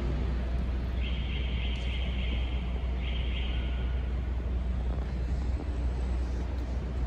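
Steady low rumble of city street and traffic noise. A high hiss comes in about a second in, lasting about two seconds, and is followed at once by a shorter second hiss.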